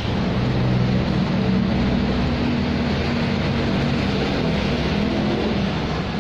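Road traffic: a steady rush of passing vehicles with a low engine drone that shifts in pitch.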